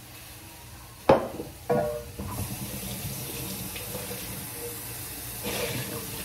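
A kitchen faucet running steadily into the sink as a dish is washed out, the water coming on about two seconds in after two clunks, the first one sharp and the loudest.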